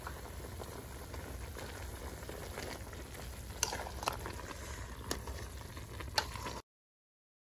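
A large aluminium pot of chicken and greens bubbling at a boil, with a few sharp clicks of a spoon against the pot as it is stirred. The sound cuts off suddenly near the end.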